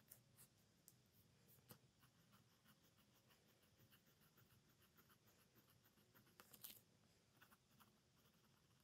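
Faint scratching of a Sailor 1911 Light's extra-fine 14k gold nib on paper, drawing a run of short strokes and loops, with one brief louder scrape about six and a half seconds in.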